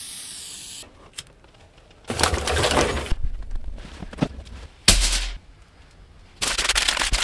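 A string of short, separate noises and clicks, then from about six and a half seconds in a wood fire crackling in a stove.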